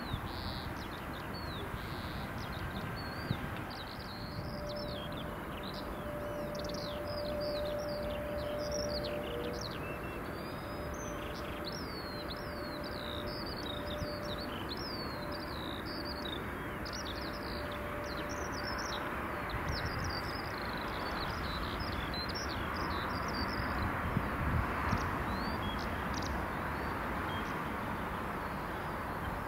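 Small birds chirping and twittering almost without pause, over a steady rushing jet noise that grows louder in the second half as an Airbus A380-861, with four Engine Alliance GP7200 turbofans, comes in on final approach to land.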